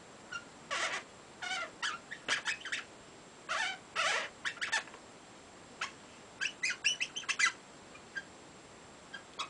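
Oil-based marker squeaking on an inflated brown latex twisting balloon (Qualatex 260Q) as a face is drawn on it: a string of short, irregular squeaks in bunches, thinning out near the end.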